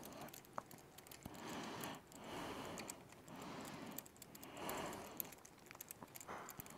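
Faint scattered clicks and light metallic handling of hand tools on an engine, with soft rustling in between.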